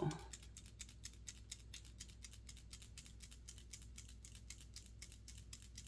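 Faint rapid clicking, about nine clicks a second, from a nail polish bottle being shaken, the mixing ball rattling inside.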